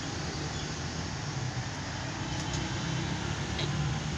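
Steady low rumble of outdoor background noise, with a few faint clicks.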